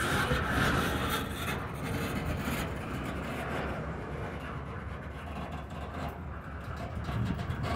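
Freight train moving in a rail yard: a diesel locomotive's steady low rumble, with scattered short clicks in the second half.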